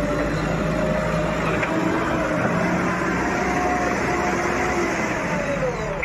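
JCB 3DX backhoe loader's diesel engine running under load as the loader works, with a tone that slowly rises and then falls away near the end.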